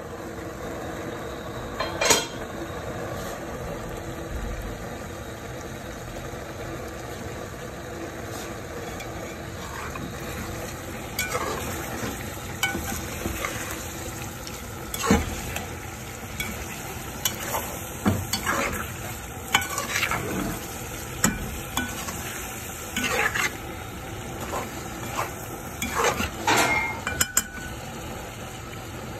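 Chicken and tomatoes sizzling in an aluminium karahi while a spatula stirs and scrapes against the pan. The sizzle is steady. Clicks and scrapes of the spatula come now and then, more often in the second half.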